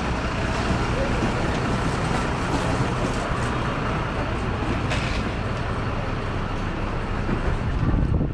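Steady engine noise with a low hum and a dense rumble, with faint voices in the background.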